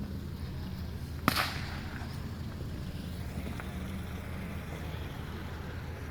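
A single firework going off about a second in: one sharp crack with a short ringing tail, over a steady low background hum.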